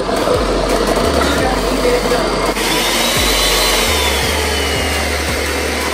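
Ninja countertop blender running, its motor grinding a jar packed with McChicken sandwiches into a thick mush. The sound changes about two and a half seconds in, with a faint whine over the steady motor noise.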